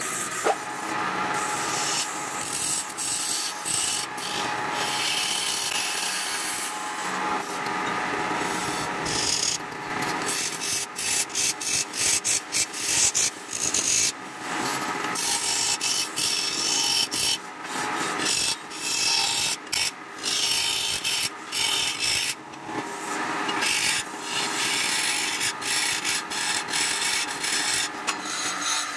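Turning tool cutting into a wooden disc spinning on a lathe, a steady scraping hiss as shavings peel off, broken by many short gaps where the tool comes off the wood.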